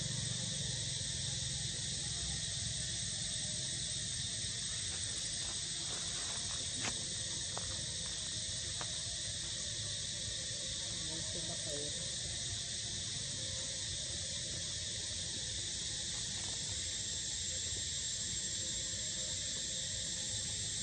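Steady, high-pitched chorus of insects droning without a break, over a low rumble.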